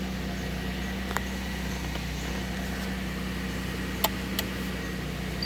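Car engine idling steadily, heard from inside the cabin, with a few light clicks about a second in and again near the four-second mark.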